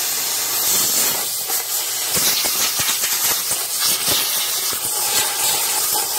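Compressed-air blow gun blowing a steady, loud hiss of air to clean dust and gunk out of a chainsaw with its bar removed.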